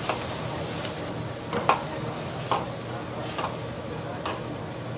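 Stir-frying in a wok: a metal spatula knocks against the pan at an even beat, a little faster than once a second, over a steady sizzle.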